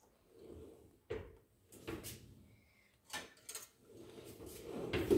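Kitchen utensils being handled: a few short, soft knocks and clatters about a second apart, then a rustling scrape that grows louder near the end.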